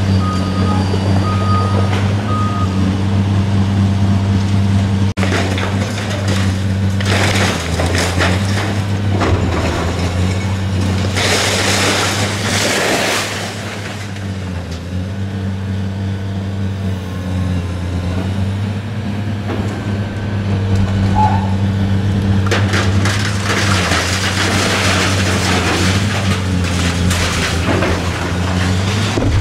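Caterpillar demolition excavator's diesel engine running steadily under load, with concrete and debris crashing and breaking up as the building is torn down, in several long stretches: a quarter of the way in, around the middle, and again near the end.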